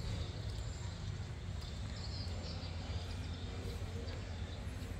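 Steady low background hum with no distinct event standing out.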